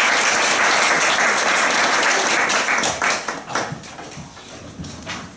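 Audience applauding, dying away about three seconds in to a few scattered claps.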